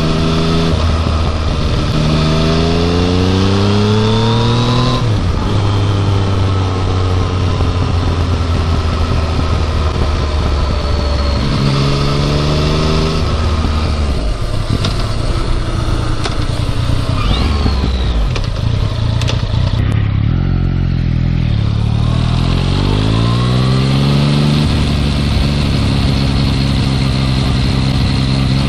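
Yamaha MT-09 three-cylinder engine through its stock muffler while riding: revs climb and drop back through several gear changes, ease off about two-thirds through, then pull away again to a steady cruise. The bike has an abnormal 'shaa' hissing noise that the owner feels is slightly better with the stock muffler back on.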